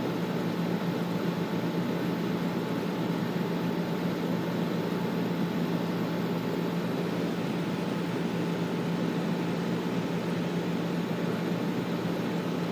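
Air conditioner running steadily: an even rushing of air with a constant low hum underneath.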